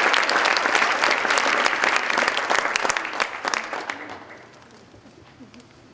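Theatre audience applauding, the clapping thinning out and dying away about four seconds in.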